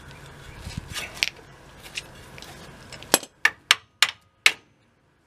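Sharp metal clicks and taps as the old brake wheel cylinder is worked off the truck's rear brake backing plate: a few scattered taps, then five loud clicks in quick succession about three seconds in.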